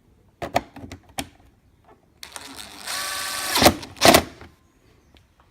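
A few clicks and knocks, then a small electric screwdriver whirring steadily for about a second and a half, driving one of the screws along the top of a car bumper. It ends in two sharp clacks.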